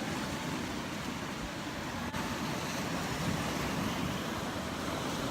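Surf washing on a rocky lava shore: a steady, even rushing noise.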